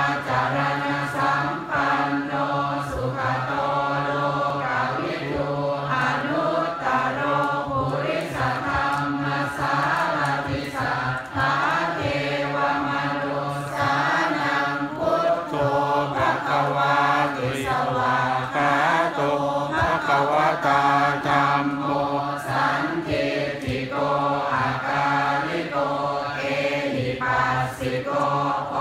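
Thai Buddhist monks and laypeople chanting together in unison, many voices holding a low, steady pitch without a break.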